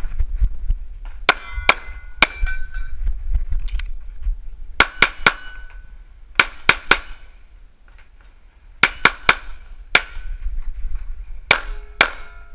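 Handgun shots fired in fast strings of two to four, about six strings over the stretch. Several are followed by a short metallic ringing, steel targets being hit.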